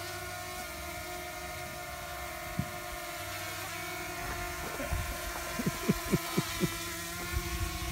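Small folding quadcopter drone hovering close by, its propellers giving a steady whine of several held tones. A handful of short sharp thumps come in quick succession about two-thirds of the way through.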